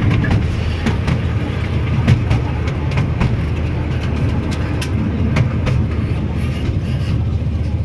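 Railway carriage running along the track: a steady low rumble from the wheels, with frequent clicks and rattles.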